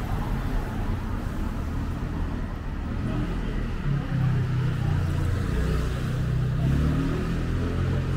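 A motor vehicle's engine running close by on a city street over general traffic noise, getting louder about four seconds in.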